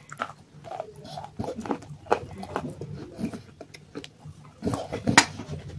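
Close-miked chewing and crunching of clay chunks in the mouth: irregular crunches and mouth clicks, with the loudest crunch about five seconds in.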